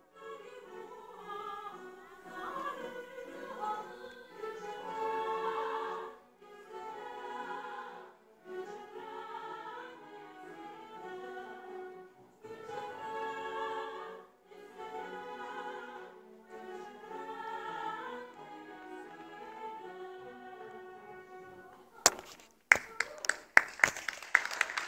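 Women's voices singing an operetta number together, with accompanying music, in phrases broken by short pauses. Near the end, a run of sharp clicks and knocks from the camera being handled.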